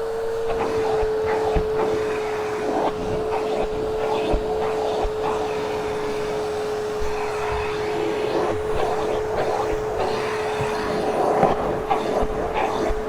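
Hoover Hushtone vacuum running with a steady whine while its hose tool is worked over a hairy carpeted stair riser, with rustling and occasional low knocks from the tool.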